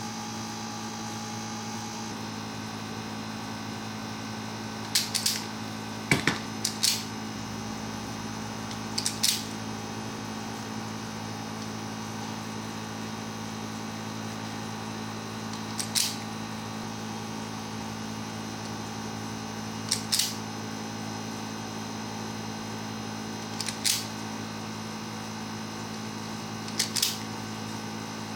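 Sharp, short clicks, about eight of them a few seconds apart, some in quick pairs, over a steady electrical hum.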